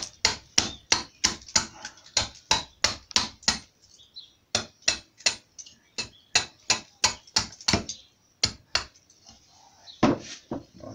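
Small hatchet blade chopping into a small block of wood held in the hand, rapid sharp chops about three a second in two runs with a short pause between, as the block is roughed out into a small carved bird; a heavier knock near the end.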